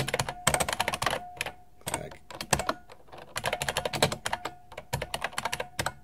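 1993 IBM Model M buckling-spring keyboard being typed on in quick bursts of loud click-clack keystrokes, with short pauses between bursts, the longest about a second and a half in.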